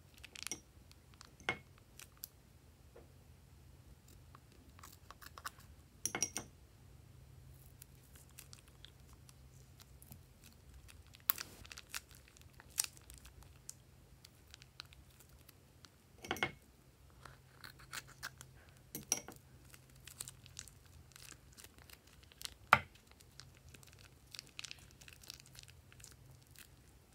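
Plastic piping bag crinkling and crackling as hands squeeze clear glue out of it, in scattered short crackles and clicks, over a faint low hum.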